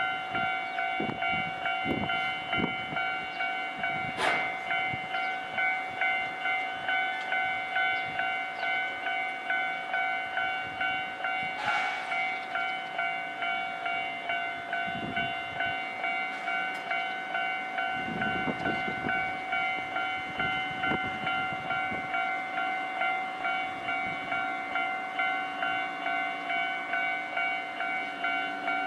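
Japanese level-crossing warning bell ringing steadily, an electronic ding repeating at an even pace: the crossing is being held closed while trains shunt. Low rumbles of train movement come and go a few times under it.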